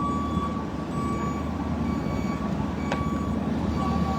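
A vehicle's reversing alarm beeping, a single high tone repeated about once a second, over the low rumble of a truck's engine.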